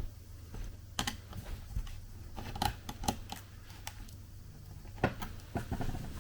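Irregular light clicks and taps of a Phillips screwdriver working the hinge screws of a Lenovo Yoga laptop, with the laptop's case and parts knocking as they are handled.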